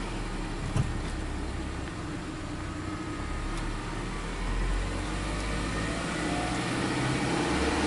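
Subaru Legacy 2.5i's 2.5-litre flat-four (boxer) engine idling steadily just after start-up, heard from inside the cabin. There is a single short click about a second in.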